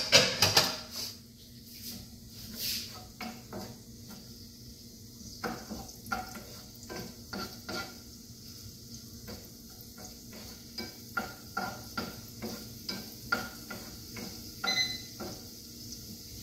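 Wooden slotted spatula stirring chopped garlic in hot oil in a nonstick frying pan: repeated short scrapes and taps against the pan over a faint sizzle, with a burst of louder knocks right at the start.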